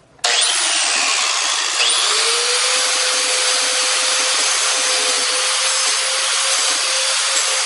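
Angle grinder running and grinding into an iPhone 6s, starting suddenly a moment in and then holding a steady, loud whine.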